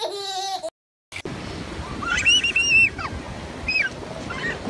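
A baby's laugh, cut off after about half a second; then surf washing up a beach as a steady rush, with a few short high-pitched squeals over it.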